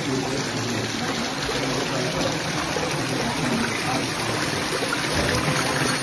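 Steady rush of running water, with faint murmur of people's voices underneath.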